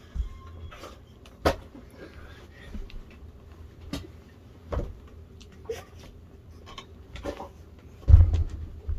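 A series of short, irregular knocks and taps, about seven of them, with a heavier, deeper thump a little after eight seconds in.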